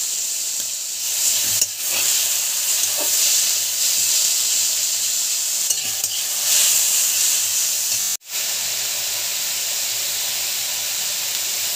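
Chopped boiled banana flower sizzling steadily in hot oil in a kadai while a spatula stirs and scrapes it around the pan. The sizzle drops out for an instant about eight seconds in.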